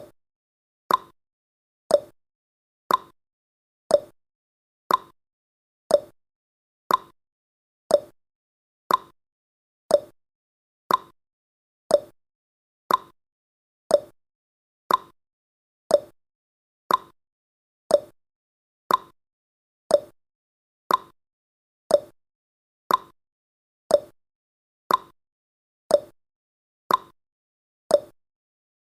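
Clock-style tick-tock sound effect of a countdown timer: one short, sharp tick each second, alternating between a higher and a lower tick.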